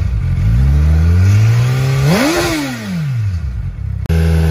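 2021 Suzuki Hayabusa's inline-four revved on the throttle through an aftermarket slip-on exhaust. The revs climb gently, then a sharp blip about two seconds in falls back toward idle. Near the end the sound cuts abruptly to a different bike idling steadily.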